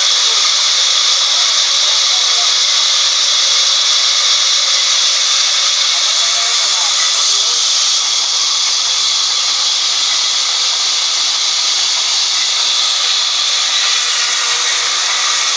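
Large sawmill band saw running and cutting through timber, a steady, high-pitched rushing noise with no break.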